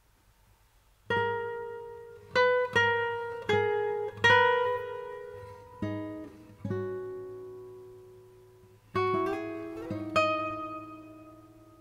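Background music: solo acoustic guitar plucking notes and chords. It starts about a second in, each note ringing out and fading, with a few quicker notes and a slide up in pitch near the end.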